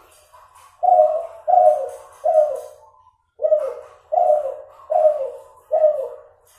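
F2 hybrid derkuku (spotted dove, Kelantan cross) cooing: three short, slightly falling coos, a pause of about a second, then four more. The voice is nasal, and the number of trailing notes is still inconsistent.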